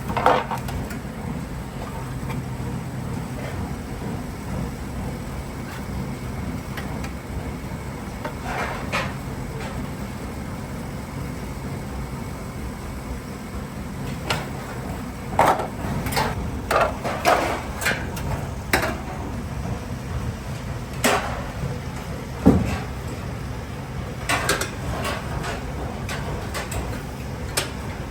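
Steady low machine hum with scattered sharp metal clanks and knocks, sheet-metal parts being handled and struck. The knocks come mostly in the second half, several in quick succession.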